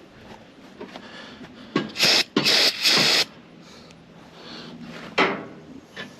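Three short, harsh rasping bursts of tool work on metal parts about two to three seconds in, with a single sharp knock a little after five seconds.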